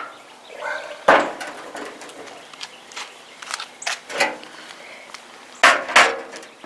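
Irregular sharp knocks and clanks, about seven of them, from metal parts being handled and fitted. The two loudest come close together near the end.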